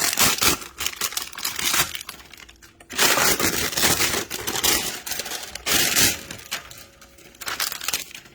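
Packaging crinkling and crackling as it is handled and pulled off a steel drill rack, in three loud stretches: a long one, a pause of about a second, another long one, then shorter rustles near the end.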